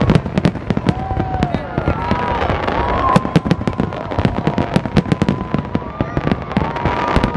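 Fireworks display going off in rapid succession: many sharp bangs and crackles, with long whistling tones gliding up and down over them.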